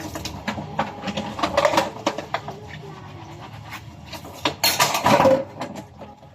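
Hard objects clattering and knocking together in a run of sharp clicks, with a louder clatter about five seconds in.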